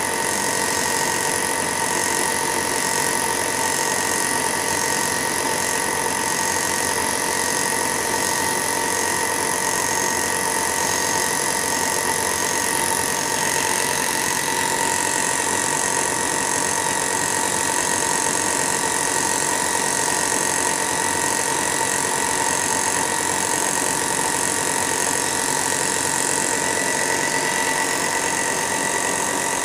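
Air compressor running steadily for a spray gun, a constant motor hum with a high hiss over it.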